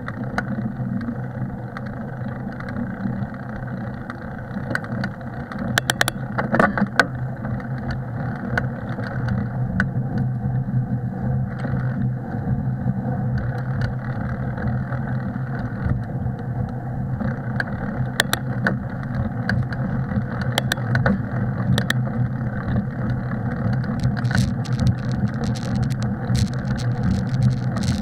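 Bicycle riding over a snowy trail: steady rolling noise, with sharp clicks and rattles from the bike coming in clusters throughout.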